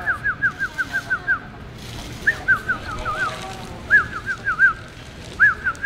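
A bird singing: phrases of quick whistled notes, each sliding down in pitch, about six or seven a second. A long phrase comes first, then three shorter ones follow about a second and a half apart.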